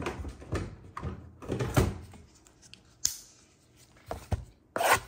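A cardboard trading-card blaster box being handled on a tabletop: a run of short knocks and thuds, a sharp click about three seconds in, then a brief loud rustle near the end as a gloved hand takes hold of the box.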